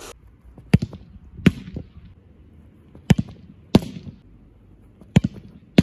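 A football struck hard in repeated kicks: sharp thuds coming in pairs about three-quarters of a second apart, three times.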